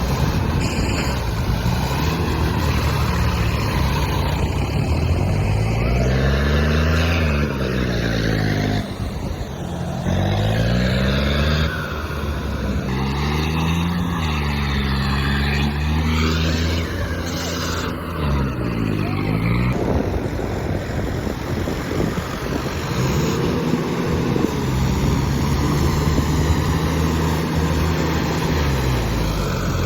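A heavy diesel engine revving up and down again and again through the first two-thirds, its pitch rising and falling every couple of seconds, then running at a steadier speed.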